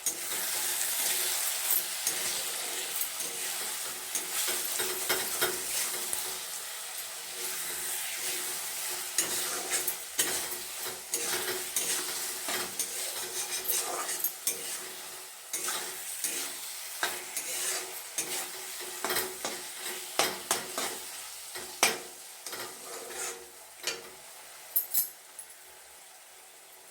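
Onion-tomato masala sizzling in mustard oil in a kadai while a spatula stirs it, with frequent clicks and scrapes of the spatula against the pan. The sizzle fades toward the end.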